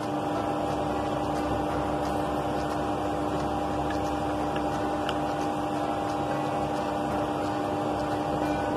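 A steady machine-like hum that holds two even pitches over a low rush, unchanging throughout.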